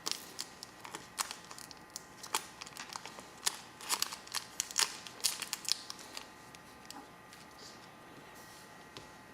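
Irregular small sharp clicks and taps of a hand tool against small metal lighter parts during disassembly, thick for about six seconds and then sparse.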